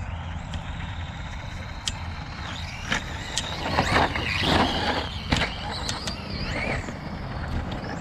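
Brushless electric RC short-course trucks (Traxxas Slash 2WD VXL) driving laps on a dirt track: motor whine rising and falling with tyres scrabbling on dirt, loudest as a truck passes close about four to five seconds in. Sharp clicks and knocks from the trucks hitting the ground come throughout, over a steady low rumble.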